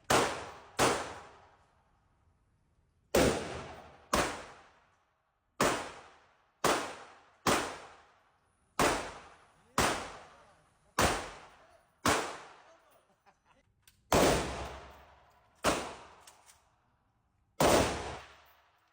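Firearm at a shooting range fired one shot at a time, about fifteen shots at an uneven pace, roughly one a second with a few longer pauses. Each shot rings out for about a second.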